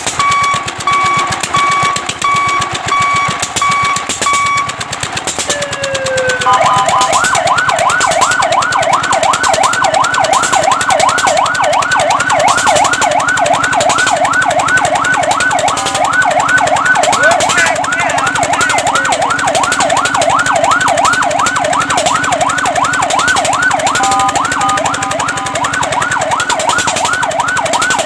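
Fire truck's electronic siren: a steady high tone for about five seconds, then, after a short falling glide, a fast yelp of rapid pitch sweeps, about three a second.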